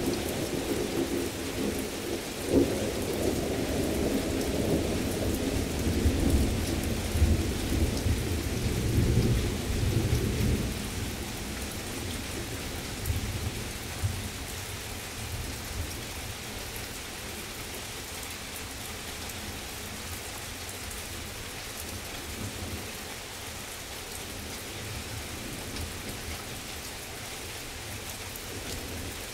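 Thunder rolling over steady heavy rain: a sharp clap about two and a half seconds in, then a low rumble that dies away after about ten seconds, leaving the rain falling.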